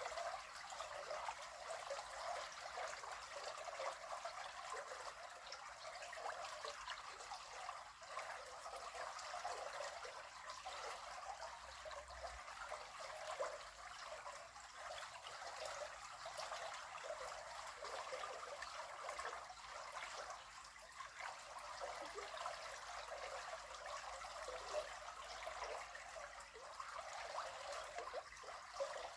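River water flowing, a steady trickling rush with no pauses.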